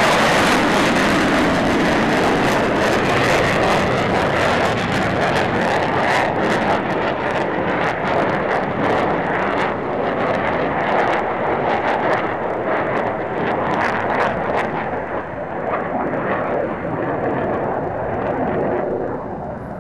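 Jet roar from a pair of F-15DJ fighters and their twin F100 turbofan engines. It is a loud, broad rush that slowly fades as the jets draw away, losing its high end in the second half.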